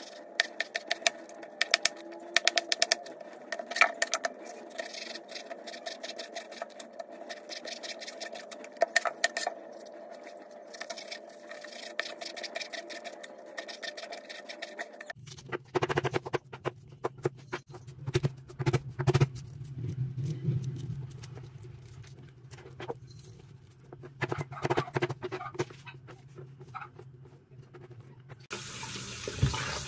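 Kitchen knife chopping eggplant on a plastic cutting board, in runs of quick cuts. After a break, more knife strokes on the board over a low hum. Near the end a tap starts running into the sink.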